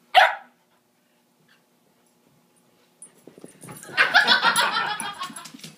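Dogs playing: one short, sharp dog vocalization right at the start, then a few seconds' quiet. Then scuffling and a rapid, high-pitched run of excited dog yips and whines as the dogs tussle.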